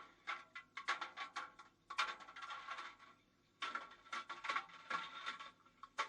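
Rapid, irregular clattering and knocking of a GoPro tumbling against the metal drum of a washing machine, in clusters of hits with short quieter gaps between them.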